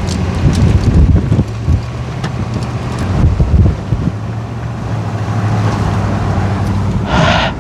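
Wind buffeting the microphone of a car moving at about 50 mph, over a steady low hum of the car's road and engine noise, with uneven swells in loudness. A brief hiss near the end.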